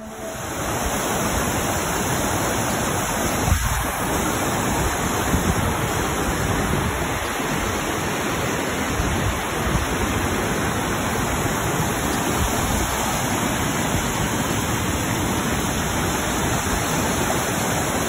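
Waterfall and creek rapids: water falling and rushing over rocks in a steady, continuous rush.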